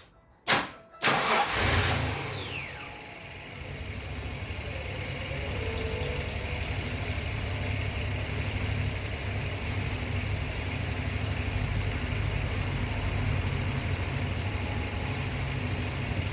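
Hyundai Galloper LPG engine, fed by a vaporizer, being cranked and catching after two sharp bursts about a second in, then settling into a steady idle that grows slightly louder. It is a cold start on an engine that has been hard to start in freezing weather.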